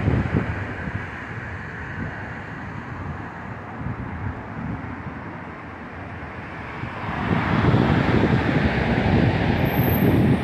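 Steady road traffic noise from the highway overpass, swelling louder about seven seconds in.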